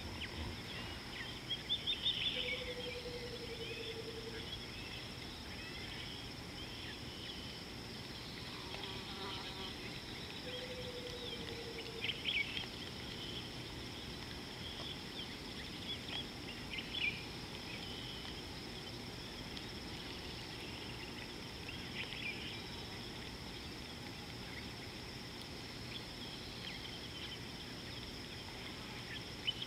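Steady high-pitched buzz of insects, with scattered short chirps over it. Twice, early on and about ten seconds in, a short low steady note sounds for a second or two.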